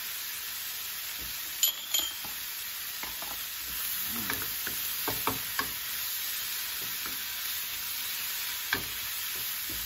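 Tofu, ground pork and celery sizzling steadily in hot oil in a frying pan while being stir-fried with a spatula, the food scraping and turning. Two sharp ringing clinks come close together about two seconds in.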